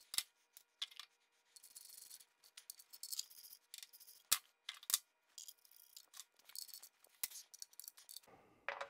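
Small steel skid-plate bolt and Allen driver being handled: scattered light clicks and taps with soft rubbing, and a few sharper metallic clicks.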